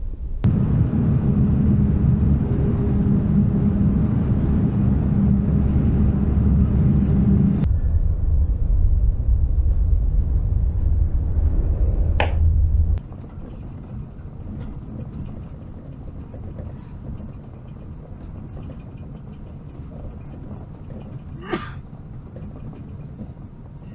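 Heavy truck driving, heard from inside the cab: a steady low rumble of engine and road noise. About 13 s in it drops to a much quieter low hum, with a single sharp click a little before that and another near the end.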